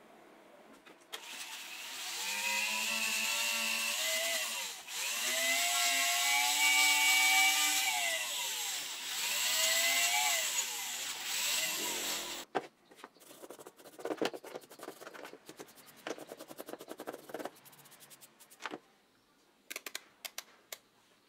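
A spray can hissing in three long bursts of about three seconds each, with a whistling tone that rises and falls in each burst, sprayed into a metal drill part. Then come a few seconds of small clicks and knocks, and near the end a multimeter's rotary dial clicking as it is turned.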